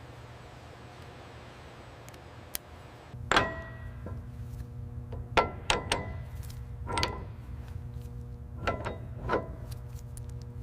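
A steady low workshop hum, then, starting about three seconds in, a string of sharp clanks of heavy truck parts being handled and set in place. Several clanks ring on briefly, like struck metal.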